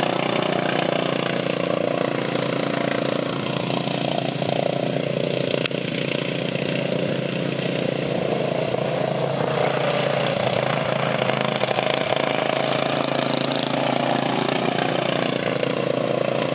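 Racing lawn tractor engines running at high speed, a steady engine drone with slight swells in pitch as the mowers go around the dirt track.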